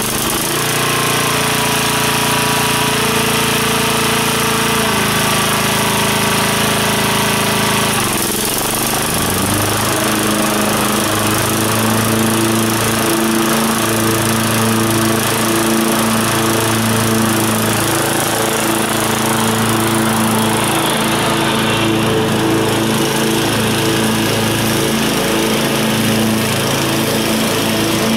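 A Scag 36-inch Advantage walk-behind mower with its Kawasaki FC420V single-cylinder engine running loud and steady while mowing. Its engine note shifts twice in the first eight seconds or so, then holds even.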